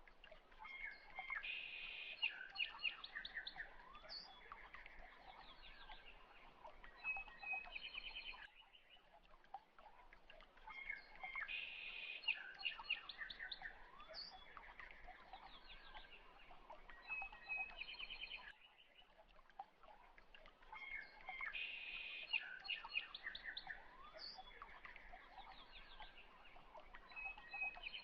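Birdsong ambience on a loop: chirps and rapid trills that repeat in the same pattern about every ten seconds.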